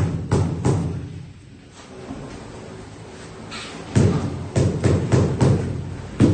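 Dull, heavy blows struck in a steady rhythm, about two or three a second, from manual pounding on a house construction site. They stop for about three seconds in the middle, then start again.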